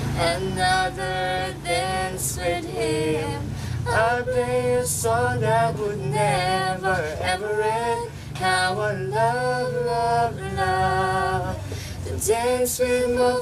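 A voice singing a slow song in long held notes, some of them wavering, over a steady low hum.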